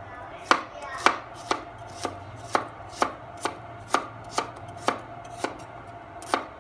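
A kitchen knife chopping a shallot on a wooden cutting board, with sharp, even strikes about twice a second.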